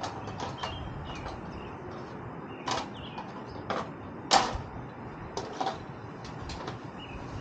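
Irregular knocks and clicks of tools and parts being handled, the loudest about four seconds in, with birds chirping faintly in the background.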